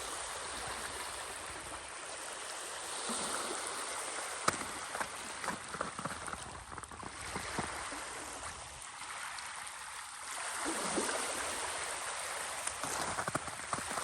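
Small sea waves washing in and lapping at the shore at a normal, unhurried pace. It is a steady watery wash broken by many small splashes and clicks.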